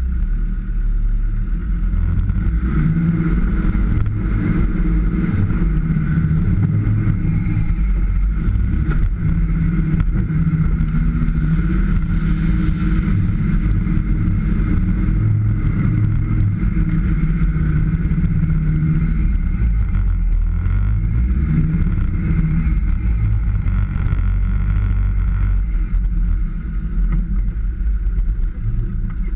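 Land Rover Defender engine running under varying throttle while driving off-road, its low note rising and falling as it works.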